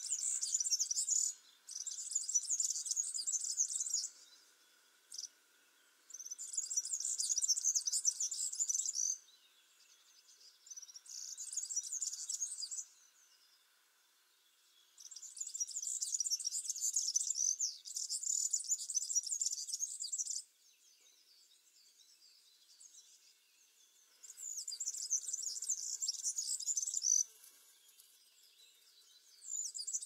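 European serin singing: rapid, high-pitched trilling song in repeated bursts of two to five seconds, with short pauses between.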